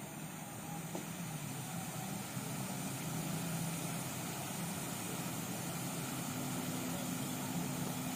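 A motor running with a steady low drone, growing a little louder about two and a half seconds in.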